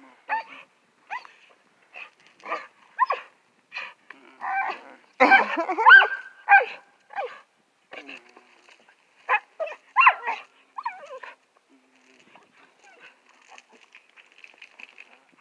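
Dog giving short, pitched whines and yips while wrestling in play with a man, a string of brief calls. They are loudest and most crowded about five to six and a half seconds in, and grow faint after about eleven seconds.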